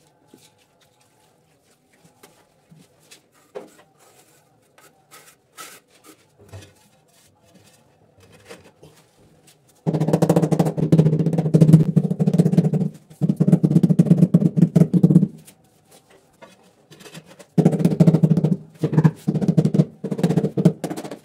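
Rubber mallet tapping rapidly on a ceramic floor tile to bed it into wet cement adhesive, dull thudding strikes in three long runs starting about halfway through, after a few faint scattered taps.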